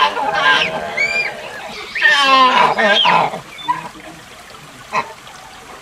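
Proboscis monkey calls: a short call at the start, then a longer, rapidly pulsing call about two seconds in that lasts just over a second. A brief whistle-like note comes near the one-second mark, and a single click near the end.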